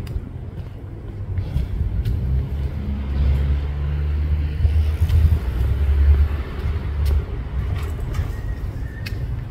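A car passing by: its engine and tyre noise build to a peak about five to six seconds in, then fade away.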